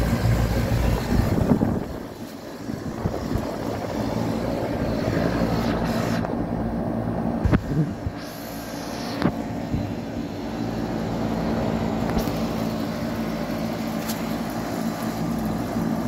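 Two 2004 Goodman CPLT heat pump outdoor units running in heat mode: a steady compressor hum under the rush of the outdoor fans. It is loudest for the first couple of seconds, then settles to an even level. A few sharp clicks come partway through.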